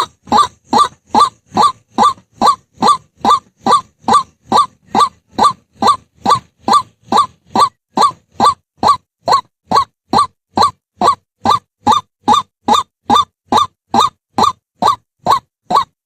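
White-breasted waterhen calling: one short, harsh note repeated in a steady, unbroken run, nearly three a second.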